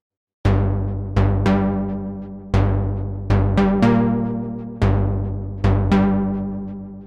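Arturia JUN-6V software synthesizer, a Roland Juno-60 emulation, playing a plucky bass sequence: short notes, each with a bright attack that quickly fades, in a repeating rhythm that begins about half a second in after a brief silence and steps up in pitch about halfway through.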